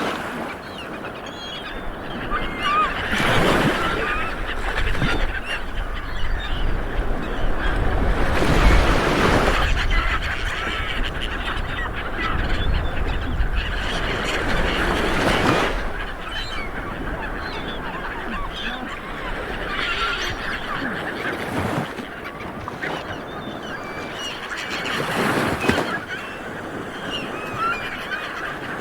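Small waves breaking and washing up a beach, swelling about every five or six seconds, with birds calling over the surf throughout.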